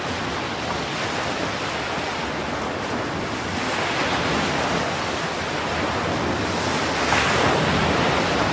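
Ocean surf washing onto a beach, with wind buffeting the microphone. The wash swells about four seconds in and again near the end.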